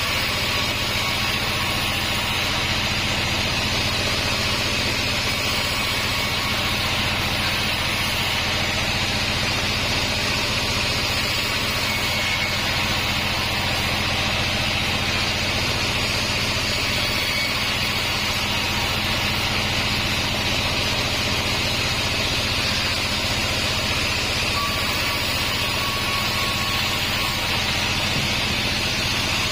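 Pandan Bandsaw36 band sawmill running steadily, a low motor hum under a constant hiss.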